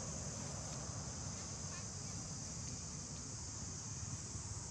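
Steady outdoor insect chorus: a continuous high-pitched hiss that never breaks, over a low rumble.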